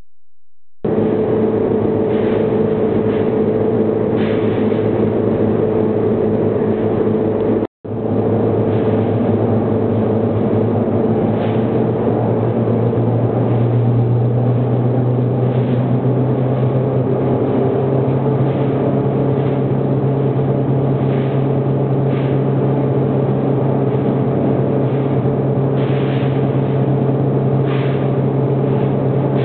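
Inverted vertical wire drawing machine running: its motor and gear reduction box give a steady loud hum with a few held tones, joined now and then by faint clinks. The hum starts about a second in and drops out briefly near eight seconds.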